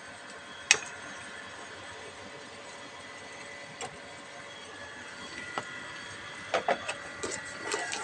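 Hand-work clicks and knocks from removing a gas water heater's solenoid valve and its wiring: one sharp click about a second in, a lighter click midway, then a quick run of small knocks and clicks near the end, over a steady background hum.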